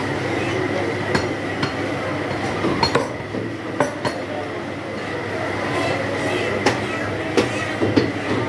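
Sharp metallic clinks of a butcher's knife, about eight irregular strikes, over the steady background noise of a busy meat market.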